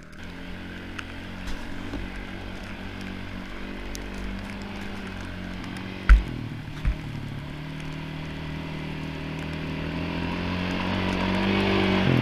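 Quad (ATV) engine running, its pitch shifting as it is driven and growing steadily louder toward the end. Two brief low thumps a little past the middle.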